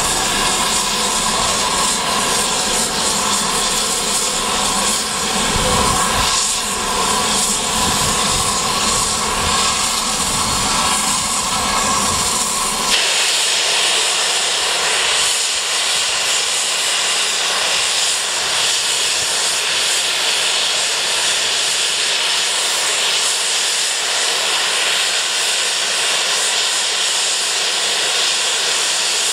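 Steam locomotive safety valves blowing off: a loud, steady hiss of escaping steam. About thirteen seconds in, the low rumble underneath drops away suddenly and the hiss turns brighter and higher.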